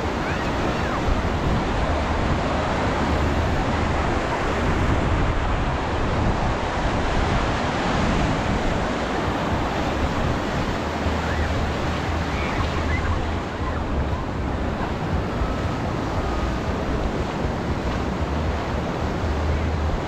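Waves washing onto a beach in a steady rush, with wind noise on the microphone.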